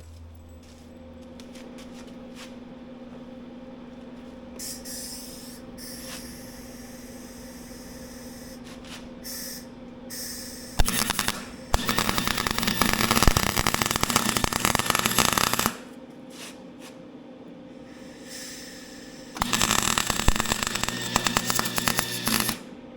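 A steady low hum, then a power tool hammering in two loud rapid bursts, the first about five seconds long and the second about three, typical of bolts being driven home on a skid steer's pin-and-bushing rebuild.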